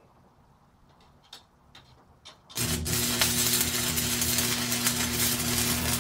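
Arc welder: a few short ticks, then about two and a half seconds in the arc strikes and crackles and sputters loudly and steadily, with a low electrical hum underneath.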